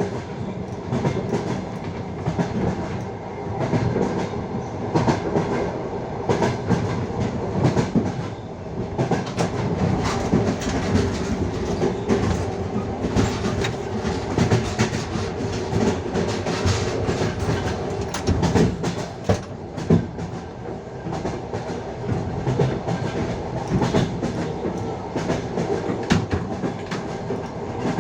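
Passenger train running along the line, its wheels clattering over the rails with a steady rumble and frequent irregular knocks, heard from a carriage window.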